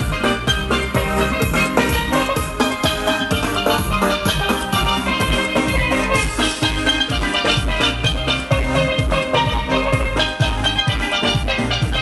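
Steelpans playing a fast soca melody of ringing metallic notes over a steady drum beat.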